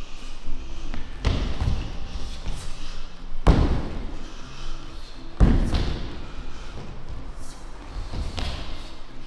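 A run of about five heavy thuds, one to two seconds apart, each trailing off in echo: impacts from martial-arts partner work on a training floor.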